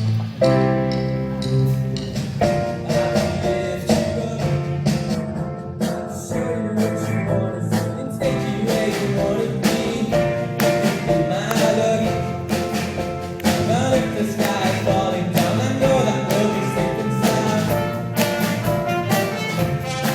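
Music with a steady beat: an instrumental passage of a pop song, several instruments playing a melody.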